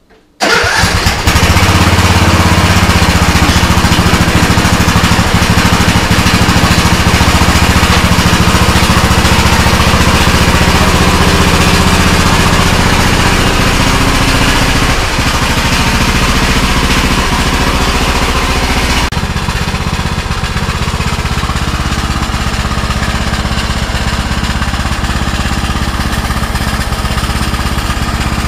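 Riding lawn mower's engine starting about half a second in, catching at once and then running loud and steady, a note that the owner has been told sounds like it has a cam in it. Its sound turns abruptly duller about two-thirds of the way through.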